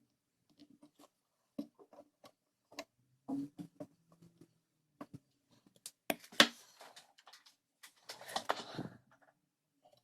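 Irregular light clicks and taps of clock parts being handled, with two louder spells of scraping and rustling about six and eight and a half seconds in.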